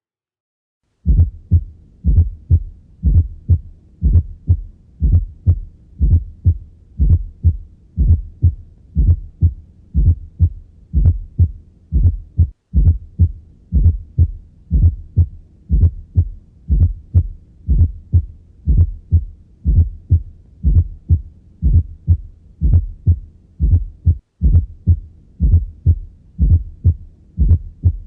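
Heart sounds recorded through a stethoscope: low thuds in a steady rhythm, each beat a small cluster of sounds, with an extra fourth heart sound (S4) just before the first heart sound. S4 is always pathological and reflects a stiff, poorly compliant ventricle.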